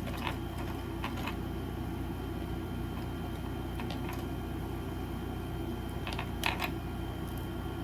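Electric fan running steadily, with a few faint light clicks and taps from small items being handled.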